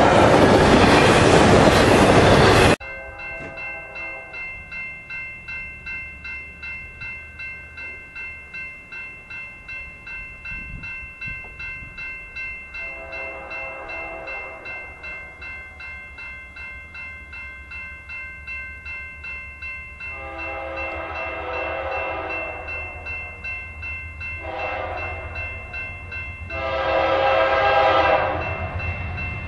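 A double-stack freight train rattles past close by, cutting off suddenly about three seconds in. Then a grade-crossing bell rings steadily while an approaching BNSF GE C44-9W diesel locomotive's air horn sounds the grade-crossing signal, growing louder: long, long, short, long.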